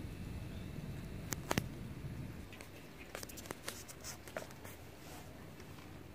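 Cats lapping water from a plastic bowl: small wet clicks at an uneven pace, with a few sharper clicks about a second and a half in.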